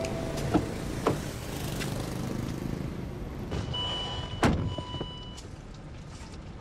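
A Range Rover's door being handled: a couple of clicks early on, then the door shutting with a solid thud about four and a half seconds in, while a steady high electronic tone sounds for under two seconds around the shut.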